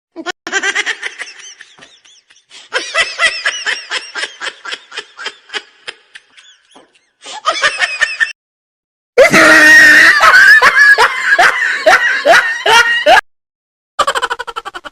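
A string of separate funny laughing sound-effect clips with short silences between them: rhythmic ha-ha laughs that slow and fade, then a very loud shrill, shrieking laugh for about four seconds, then another laugh starting near the end.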